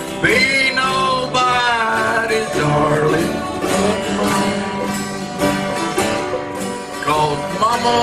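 Live bluegrass band playing, with banjo and acoustic guitar picking under a pitched melody line that slides and bends near the start and again near the end.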